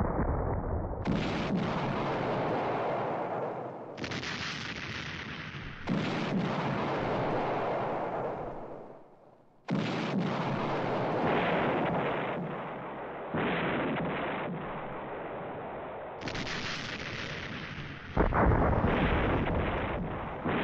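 A barrage of heavy explosions, about seven blasts that each hit suddenly and rumble away over two or three seconds, running into one another.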